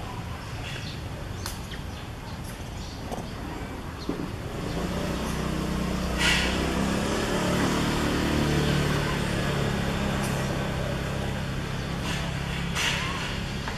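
A motor vehicle's engine running, a low steady hum that grows louder about four to five seconds in and holds, with a few short clicks early on and brief hissy noises.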